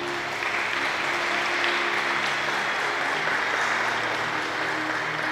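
Audience applauding steadily, with quiet background music underneath.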